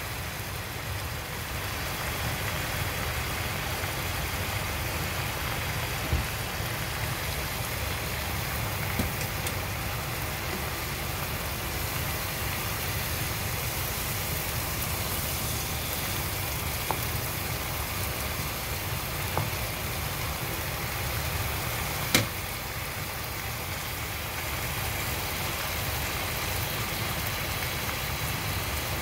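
Chicken thigh pieces sizzling and bubbling in sauce in a frying pan, a steady hiss over a low rumble. A few sharp knocks from the wooden spatula against the pan, the loudest a little past twenty seconds.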